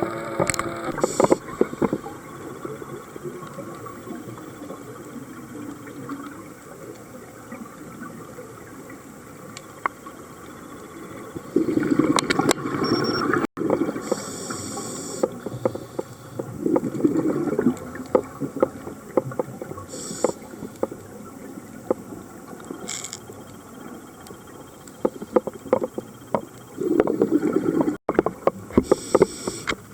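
Scuba diver's breathing heard through an underwater camera: loud bubbly bursts of exhaled air from the regulator about every five seconds, over a constant faint crackling of small clicks in the water.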